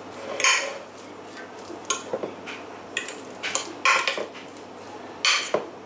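Metal utensil scraping and clinking against a glass baking dish as chunky potato salad is stirred and folded, in a series of short, irregular strokes.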